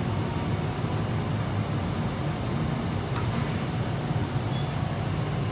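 Amtrak Amfleet passenger coaches passing close by: a steady rumble of steel wheels on the rails, with a brief hiss about three seconds in.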